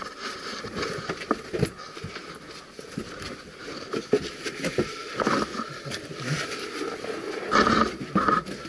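Someone crawling over loose rock and gravel in a tight mine passage: irregular scrapes, knocks and crunches of stone, with a louder spell of scraping near the end.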